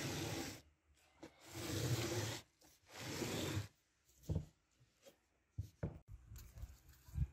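A ceramic serving plate slid and scraped across a plastic tablecloth three times in a row, each a loud rubbing sound under a second long, followed by a few light knocks and clicks of dishes on the table.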